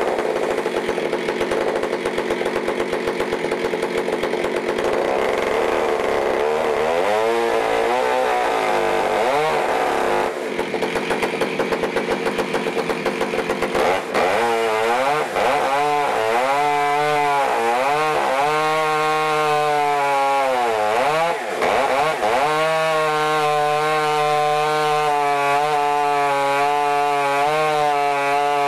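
Modified Stihl MS661 two-stroke chainsaw running in a chainsaw mill, ripping lengthwise through a log to cut a slab. Its pitch wavers through the middle of the cut and holds steady near the end.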